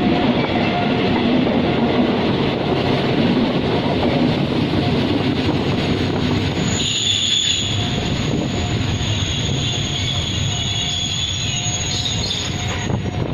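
Passenger train running, heard from aboard a carriage: a steady rumble of wheels on the rails. About halfway through, a high, thin wheel squeal joins in and holds nearly to the end.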